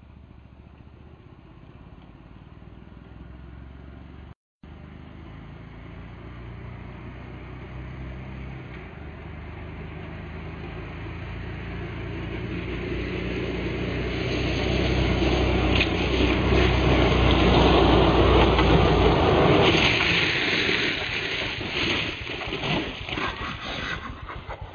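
An ATV engine approaching and growing steadily louder, with a brief dropout about four seconds in. About twenty seconds in there is a loud hiss of tyres sliding across gravel, then scattered knocks and scraping as the quad skids out and the rider wipes out.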